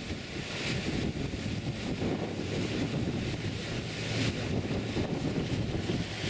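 Wind buffeting the microphone over the rush of water churned by a tender boat's propeller wash, with an uneven low rumble throughout. The hiss swells briefly about a second in and again near four seconds.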